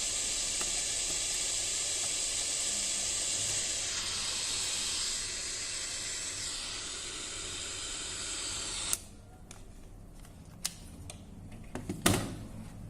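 A steady spraying hiss that cuts off sharply about nine seconds in, followed by a few light clicks and a knock near the end.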